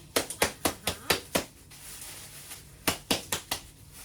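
Kitchen work: sharp knocks and clicks in two quick runs, about seven in the first second and a half, then about five more around three seconds in.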